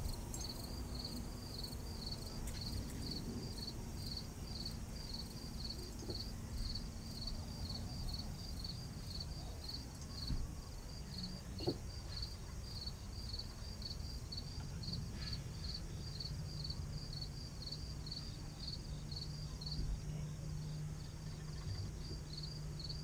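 An insect chirping steadily in an even rhythm, about two high chirps a second, over low outdoor background noise and a faint steady low hum.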